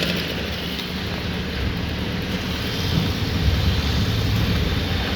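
An engine running steadily, a continuous low rumble with street noise over it.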